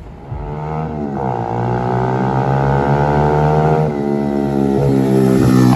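Pit bike engine revving up as the bike pulls away, then running under throttle. Its pitch dips briefly about four seconds in and climbs again.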